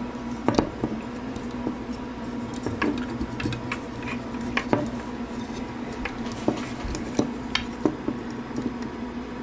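Light, irregular clicks and taps of hard toy parts being handled, as a small pilot figure is fitted into an action figure's cockpit.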